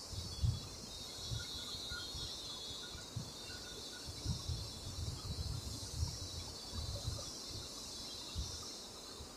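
Quiet marker writing on a whiteboard: irregular soft knocks and strokes against the board over a steady hiss.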